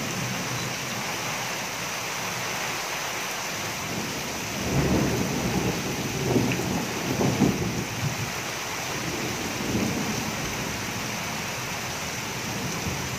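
Heavy rain pouring down steadily, with a run of louder low rumbling surges from about five to ten seconds in.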